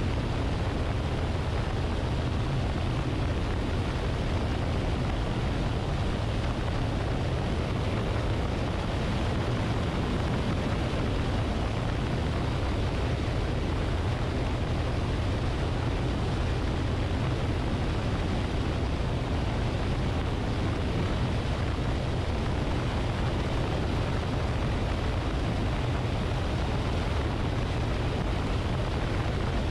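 Steady in-flight noise from a camera on the wing of a Luscombe light airplane: wind rushing over the camera mixed with the aircraft's engine drone, heavy and rumbling at the low end and unchanging throughout.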